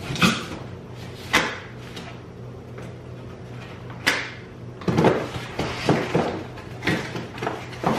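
A package being worked open with scissors: scattered sharp knocks, clicks and rustling of the packaging, busiest in the second half.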